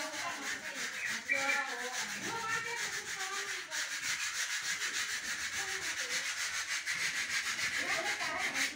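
Rapid back-and-forth rubbing strokes by hand against a plaster ceiling, about five strokes a second, with a steady scratchy hiss. It stops abruptly near the end.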